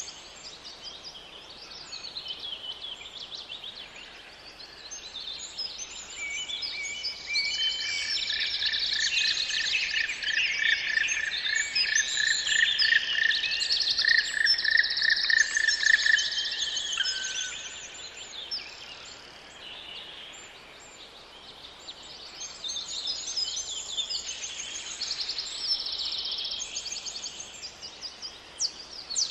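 Several songbirds singing at once, many overlapping chirps and trills. About seven seconds in, one bird repeats a single note many times in a steady series for about eight seconds, while the chorus swells, then thins out after about 17 seconds and builds again near the end.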